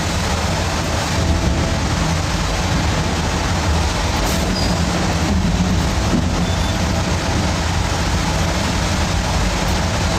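Sawmill machinery running steadily: a constant low engine drone with a broad rushing noise over it.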